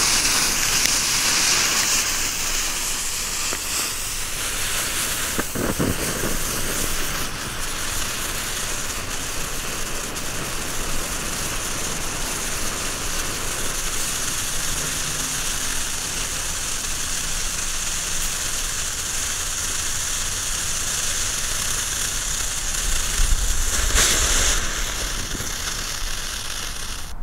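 Steady hissing of 'Snake Pit' and 'Baby Kacke' snake-type novelty fireworks burning and pushing out ash snakes. The hiss swells briefly near the end.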